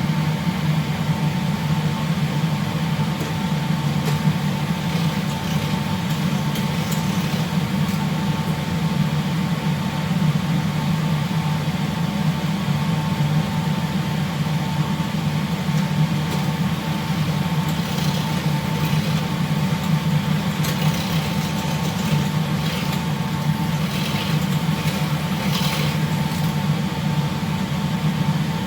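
Steady low drone of ship's machinery, with a thin steady whine above it. Faint light clicks come and go in the second half.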